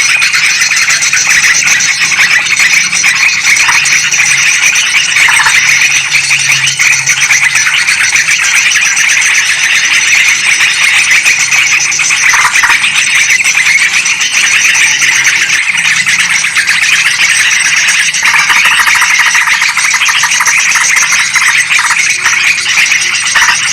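Yellow-vented bulbuls and sooty-headed bulbuls calling excitedly together in a continuous, dense chatter of many overlapping chirps: a bird-lure recording of a noisy flock.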